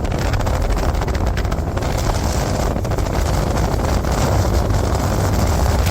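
Strong wind buffeting the microphone close to a large tornado: a loud, steady roar with a heavy low rumble and dense crackling.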